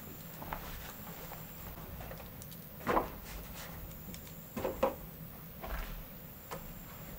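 Several short knocks and clatters, the loudest about three seconds in and a quick pair near five seconds, over a low steady hum.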